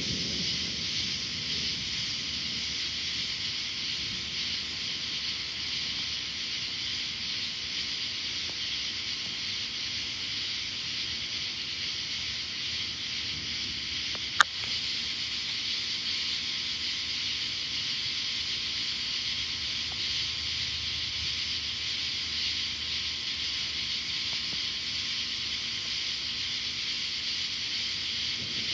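Steady chorus of night insects, with a higher-pitched call pulsing regularly, roughly once a second. A single sharp click about halfway through.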